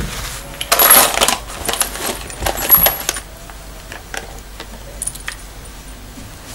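Loose metal bolts and nuts clinking and rattling as a hand rummages through a pile of them, densest for a couple of seconds about a second in, then a few scattered clicks.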